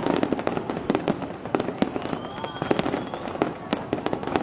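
Aerial fireworks shells bursting in quick, irregular succession: many sharp bangs and crackles overlapping with one another.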